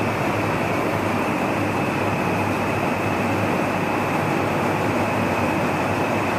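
Steady room noise: an even rush of air with a low hum, as from a fan or air-conditioning unit running, unchanging throughout.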